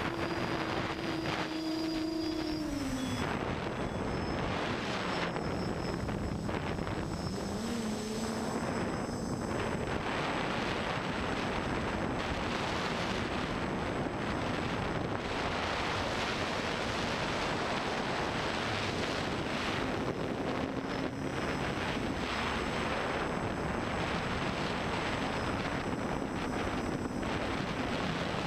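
Armattan FPV quadcopter in flight, its brushless motors and propellers whining over a steady rushing noise. The pitch of the whine falls about three seconds in and climbs again a few seconds later as the throttle changes.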